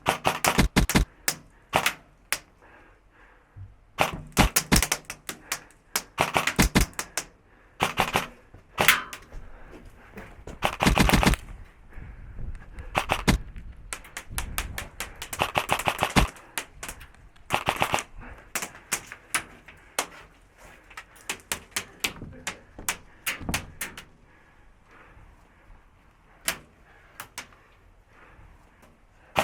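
Airsoft electric guns firing: rapid strings of sharp clicking shots and single shots, with a longer full-auto burst about eleven seconds in.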